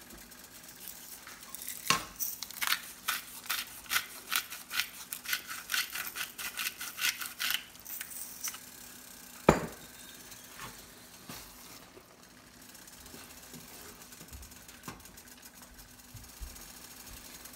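Wooden spatula stirring thick fava-bean ful in a nonstick frying pan, scraping and tapping against the pan in quick strokes, about two to three a second, for several seconds. A single louder knock about nine and a half seconds in, then only occasional faint strokes over a faint steady hum.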